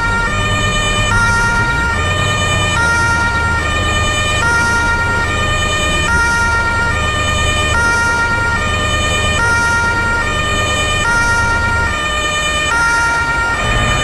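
Truck's 'telolet basuri' multi-tone musical horn sounding continuously, alternating back and forth between two chords, each held for under a second, like a siren. A steady low engine rumble runs underneath.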